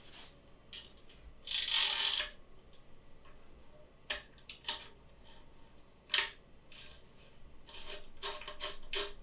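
Light clicks and taps of small metal parts and tools being handled while a laser engraver's frame is assembled, with a short rustling scrape about one and a half seconds in and a quick run of clicks near the end.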